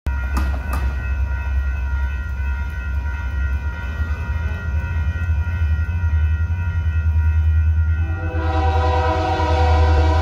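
Diesel locomotive's low engine rumble from an approaching train. About eight seconds in, the locomotive's air horn starts blowing loudly, a chord of several notes held on.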